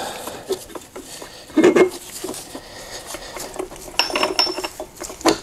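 Steel drive chain and gear clinking and rattling as they are worked onto the sprocket inside an open ATV transaxle case. There are scattered light clicks, a heavier clunk about a second and a half in, and more clinking with a short metallic ring near the end.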